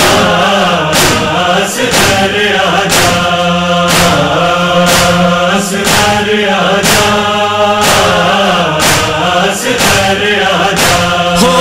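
Noha lament with a chorus of voices chanting and a heavy beat about once a second, the rhythm of matam chest-beating.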